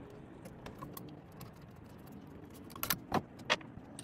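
Light metallic clinks and handling noise as the blade is taken off a Makita miter saw, with three sharp knocks about three seconds in.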